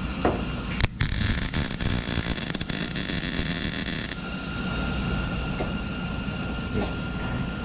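MIG welder arc crackling on sheet steel for about three seconds, starting about a second in and cutting off abruptly: a short weld joining a patch panel to the hood's underside bracing.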